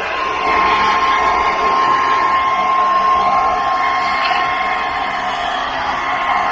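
Electric blow dryer running steadily, blowing air through a wet dog's coat, with a constant high whine over the rush of air.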